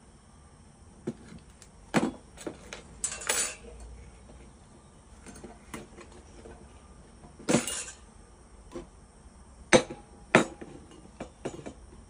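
Cast metal pirks and hand tools clinking and knocking on a workbench: a dozen or so irregular sharp metal clicks and knocks, with two short scraping rattles, one about three seconds in and one near the middle.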